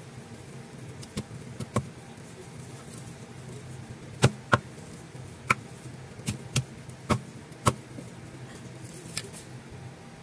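Meat cleaver chopping steamed chicken on a thick round wooden chopping block: about ten sharp chops at uneven intervals, the loudest two close together about four seconds in, over a steady low hum.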